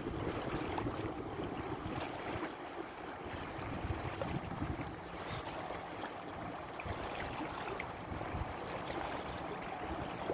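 Water washing along a sailboat's hull under way, with gusts of wind buffeting the microphone.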